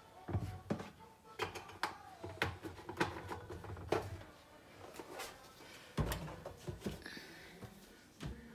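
Irregular clicks, taps and knocks of kitchen things being handled, with a dull thump about a third of a second in and another about six seconds in.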